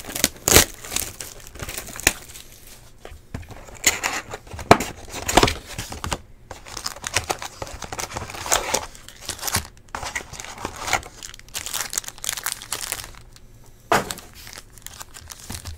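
Plastic shrink-wrap torn off a trading-card box and the box opened, then foil card packs rustling as they are handled: irregular crinkling and tearing with sharp crackles.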